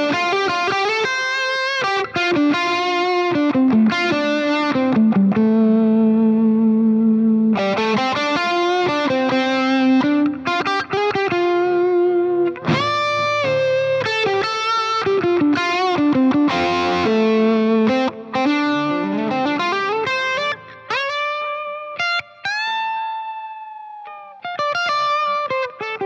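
Gibson Les Paul R9 (1959 reissue) electric guitar, played through a Fractal Audio AX8 amp modeller, playing a single-note lead line with long held notes and several upward string bends near the end.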